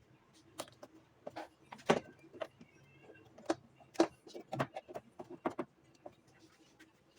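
Irregular sharp clicks and knocks, the loudest about two and four seconds in, over a faint steady hum.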